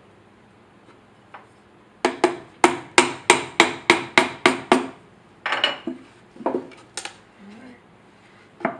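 A hammer tapping a nail into a pine wooden box: about ten quick, sharp strikes at roughly three a second, then a few scattered, softer knocks of wood.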